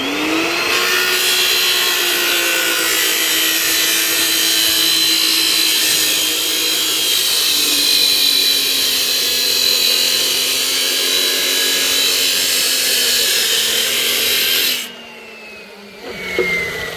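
Handheld electric angle grinder spinning up and grinding metal with a loud, rough hiss, its motor pitch sagging under load. Near the end it cuts off suddenly and the motor whine falls away as the disc spins down.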